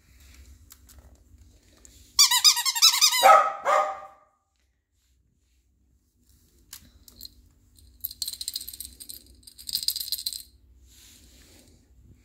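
A squeaky dog toy squeezed once, giving a loud wavering squeal that drops in pitch as it ends. Later the toys rustle and scrape against each other as a hand rummages through the wicker basket.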